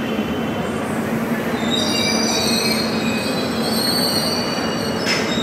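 Passenger train coaches rolling slowly past a platform, steel wheels on the rails running with a steady rumble. From about two seconds in, high-pitched wheel squeal sounds over it, and a couple of sharp metallic clanks come near the end.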